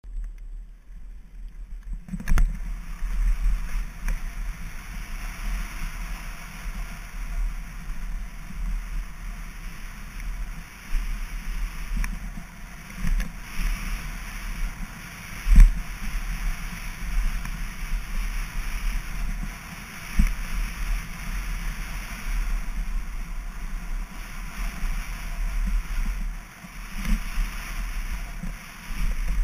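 Specialized Enduro mountain bike rolling fast down a gravel trail, heard through a chest-mounted action camera: steady wind rush and tyre rumble, with scattered knocks and rattles as the bike hits bumps, the loudest about halfway through. Quieter for the first two seconds before the ride picks up.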